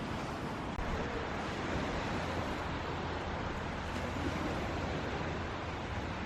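Sea waves washing onto a beach with wind buffeting the microphone: a steady rush of noise with a low rumble underneath.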